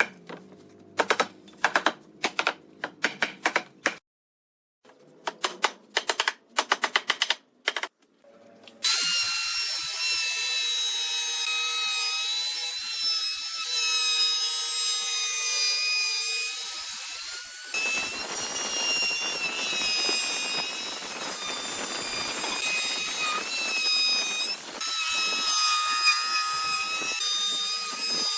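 Quick sharp clicks or taps, then about nine seconds in a power tool starts up and runs with a steady high whine through the wood work, its tone dipping briefly a couple of times.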